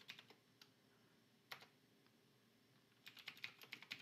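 Faint computer-keyboard typing: a few keystrokes at the start, a single keystroke about a second and a half in, then a quick run of keystrokes in the last second.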